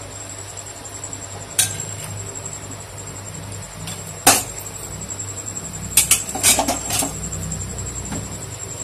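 A few sharp metal clicks and clatters of a spoon and utensils against a steel kadhai on a gas stove as cumin seeds go into the hot oil, the loudest about four seconds in and a quick cluster near the end, over a steady low hum.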